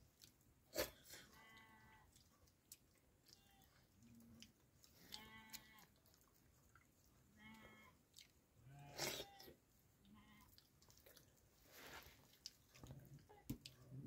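Faint sheep bleating: several short calls spread through, with a few sharp clicks among them.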